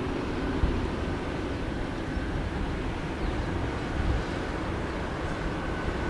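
Steady rumble of jet airliner engines heard from afar, with a faint high whine that comes and goes.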